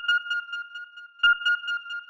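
Loud electronic beeping: a steady high-pitched tone that flutters rapidly and swells into a fresh burst with a faint low thud about every second and a half, once at the start and again just over a second in.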